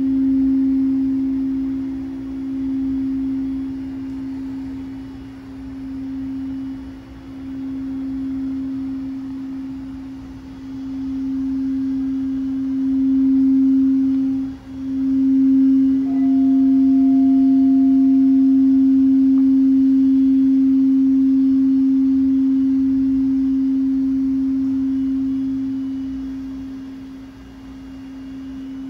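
Frosted quartz crystal singing bowl played with a mallet, holding one steady low tone that swells and ebbs in slow waves. Past the middle the tone drops out for a moment, then returns steadier and louder, with a fainter higher tone over it for a few seconds, and it fades near the end.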